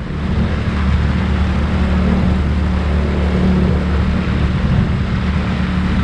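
Tiller-steered outboard motor running steadily at cruising speed, with a steady low hum and the rush of wind and water past the boat.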